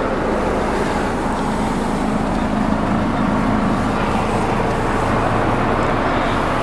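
Steady low rumble of a vehicle engine running nearby amid road traffic noise, with a constant hum and no change in pitch.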